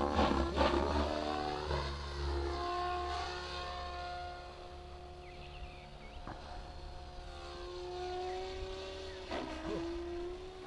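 Electric RC helicopter in flight at a distance: the motor and rotor give a steady pitched whine whose pitch slides down and back up as it manoeuvres, louder and rougher in the first couple of seconds.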